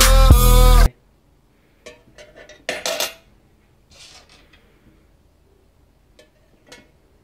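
Loud hip-hop dance music cuts off abruptly about a second in. Then come several short metallic clinks of coins dropping into a tin money box: two clusters, then two single clinks near the end.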